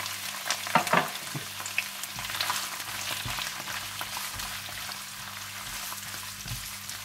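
Prawns sizzling in hot oil in a frying pan, with a few sharper spattering pops in the first second or so, then a steady crackling sizzle.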